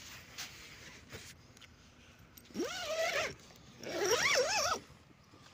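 A dog whining: two drawn-out cries, about two and a half and four seconds in, each rising and wavering in pitch.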